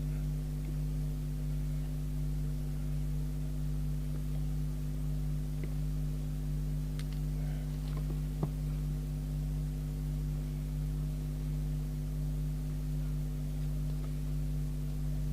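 Steady low workshop hum made of several even pitches, with a few faint small clicks and one sharper click about eight and a half seconds in, from handling parts on the bench.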